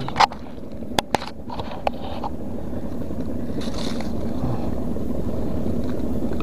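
A motor drones steadily at a low pitch and slowly grows louder, after a few sharp clicks in the first two seconds.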